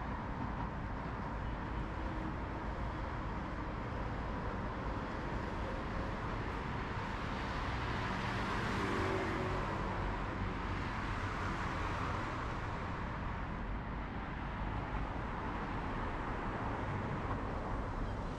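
Steady road traffic on a wide multi-lane boulevard: a constant rush of tyres and engines, with a vehicle passing closer and louder about halfway through.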